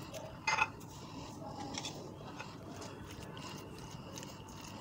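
A fork mashing boiled potatoes with cheese, soft squishing and the tines scraping and ticking against the container, with one sharp knock about half a second in.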